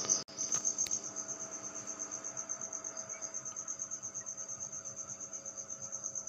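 Insect trilling, most likely a cricket: a steady, rapid, evenly pulsed high-pitched chirp.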